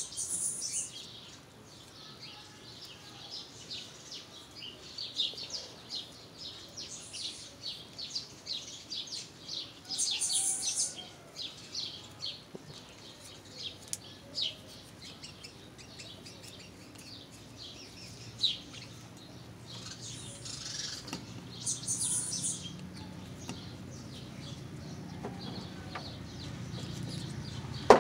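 Small birds chirping over and over in quick short notes, with a few louder rasping bursts of electrical tape being pulled off the roll as the cable is wrapped. A low hum comes in over the last ten seconds.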